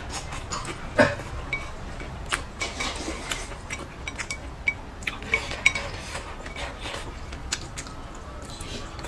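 Wooden chopsticks clicking and scraping against a ceramic bowl at irregular moments, the loudest clack about a second in, a few with a short ring, along with close-up mouth sounds of eating saucy braised eggplant.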